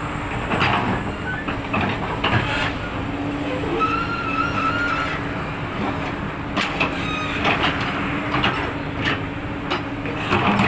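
Excavator's diesel engine running steadily under working load, with scattered metal clanks and knocks from the bucket and a brief squeal about four seconds in.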